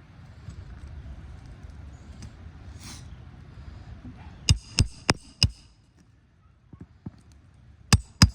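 Sharp metal-on-metal strikes with a ringing tone while the nails of asphalt roof shingles are being worked: four quick blows about a third of a second apart midway, then two more near the end, over a low rumble of handling noise.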